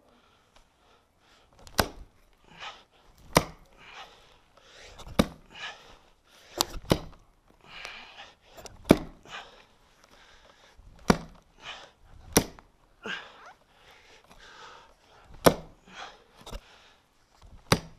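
Axe chopping through birch roots in the soil: about a dozen hard blows, one every second or two.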